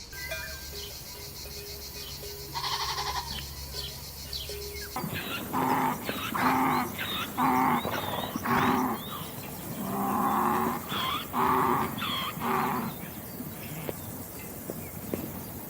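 Farm animals calling: a single call, then a run of about a dozen short, pitched calls in quick succession that die away near the end.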